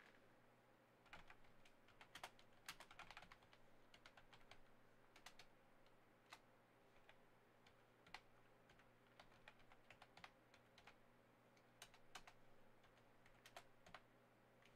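Faint typing on a computer keyboard: irregular key clicks, some in quick runs, over a low steady hum.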